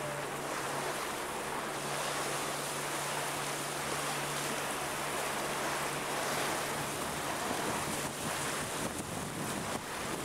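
Water rushing and splashing, with wind buffeting the microphone, on open water under sail. A steady low hum runs underneath and fades for a while in the second half.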